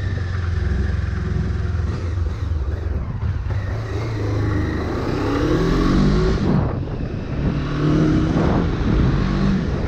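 Honda CB500 parallel-twin engine running while the bike is ridden. The revs climb about halfway through, cut off briefly about two-thirds in, then hold steady.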